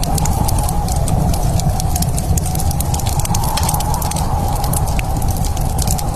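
Wood fire crackling in a fireplace: many quick pops and snaps over a steady, loud low rumble.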